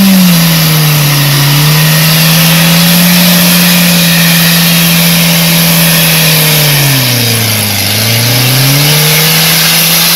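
Minivan engine held at high revs as it is driven through mud in two-wheel drive, over a steady hiss. The revs dip once about three-quarters of the way through, then climb straight back up.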